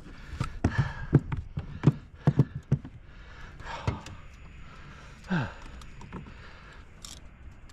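A freshly landed giant trevally thumping and slapping on the floor of a small aluminium boat: a run of irregular knocks, thickest in the first three seconds, then a few scrapes and rustles.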